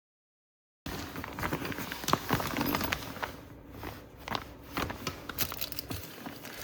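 After a brief dead silence, a run of irregular small clicks, taps and rustles: close-up handling noise of objects being moved about.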